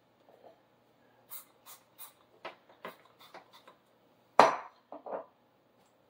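Kitchen utensils being handled on a paper-covered countertop: scattered light clicks and taps, then one sharp knock a little past halfway, followed by a couple of softer ones.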